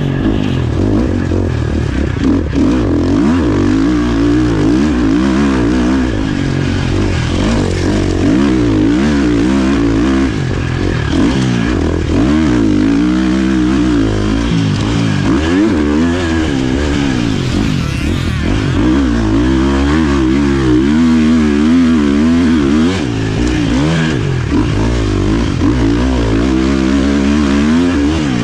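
Four-stroke motocross dirt bike engine, a Husqvarna FC 350, revving up and dropping back again and again as the rider accelerates, shifts and brakes around a rough sand track, heard from a helmet camera.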